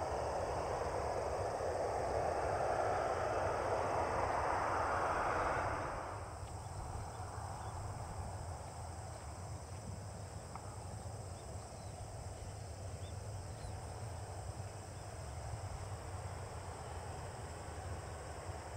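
Jet engine noise of a Boeing 737-800's CFM56 turbofans as the airliner moves along the runway: a steady rushing whoosh that cuts off abruptly about six seconds in. After that, a second 737-800 turning slowly on the runway at low power gives only a faint low engine rumble.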